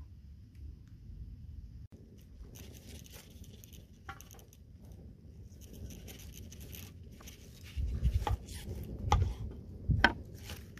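A large knife cutting and scraping through the rind and fibrous flesh of a pineapple in short crackling strokes, with three louder dull knocks against a wooden cutting board near the end.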